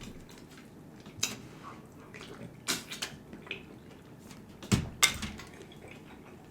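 Scattered wet mouth clicks and smacks of eating a seafood boil, about half a dozen short sounds a second or so apart, the loudest a little before the fifth second.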